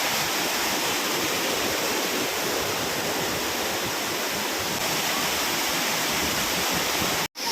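Steady rush of the Wah-Kaba waterfall, cutting out abruptly for a moment near the end.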